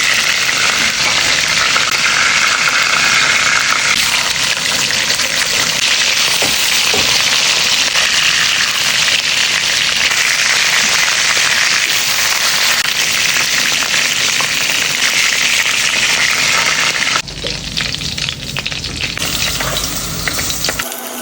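Seasoned chicken frying in hot oil in a pan: a loud, steady sizzle that turns somewhat quieter about 17 seconds in.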